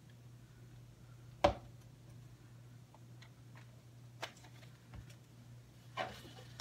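Kitchen containers being handled on a counter while a drink is mixed: one sharp knock about a second and a half in, then a few lighter clicks and taps, over a steady low hum.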